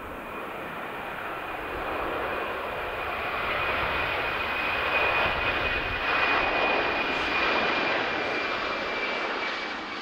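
Jet airliner's twin turbofan engines at takeoff thrust as it lifts off and climbs away. A steady rushing roar carries a high whine held through it, building to its loudest mid-way and easing slightly near the end.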